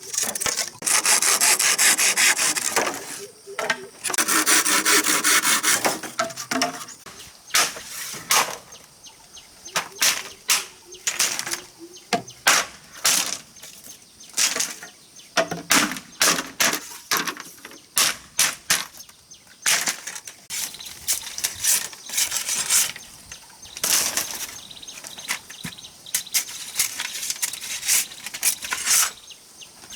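Wood being hand-sawn in two long rasping passes, then a long, irregular run of short knocks and scrapes on wood.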